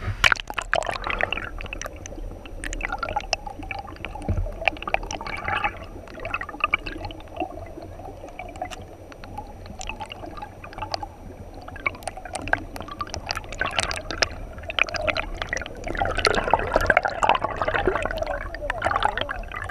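Shallow river current heard through an underwater camera: steady gurgling and bubbling with many small crackling clicks and pops, growing louder and busier near the end.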